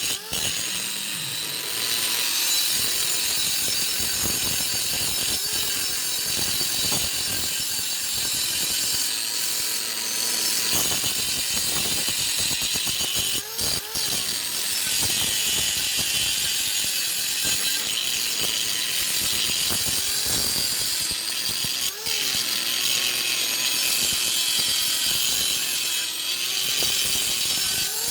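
Electric arc welding on a broken leaf spring: a steady crackling, sizzling arc that breaks off briefly a few times, about halfway through and once more after that.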